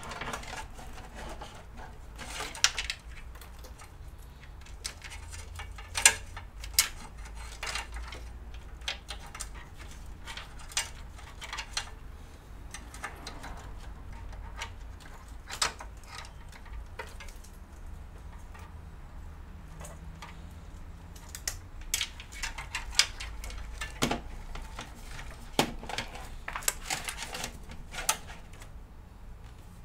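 Irregular clicks, taps and light rattles of sleeved cables and plastic power connectors being handled and unplugged inside a PC case, over a low steady hum.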